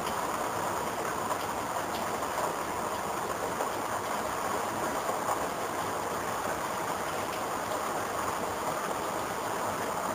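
Steady rain pouring down: an even, unbroken hiss.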